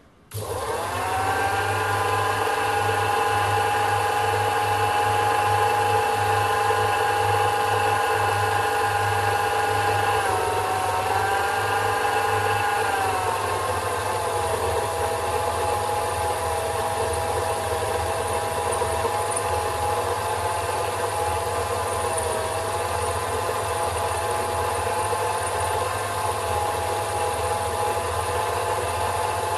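Sherline micro lathe starting up and running at reduced speed while turning a mild steel workpiece, a steady motor and spindle whine. The pitch rises as it starts just after the beginning, wavers about ten seconds in, and settles a little lower.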